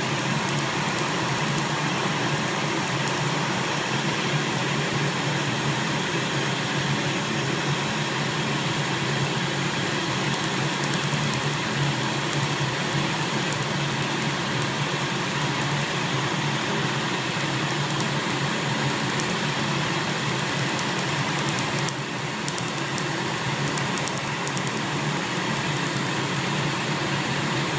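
PicoSure picosecond tattoo-removal laser firing, a rapid train of sharp clicks, one per pulse, over the steady whir of the machine's cooling. The clicks stop for a moment about three-quarters of the way through, then go on.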